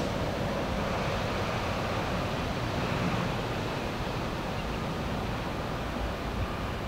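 Steady rushing background noise, heaviest in the low end, with no distinct events.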